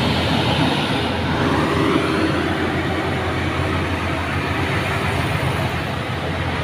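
Heavy trucks' diesel engines running under load up a steep climb: a steady low drone with tyre and road noise.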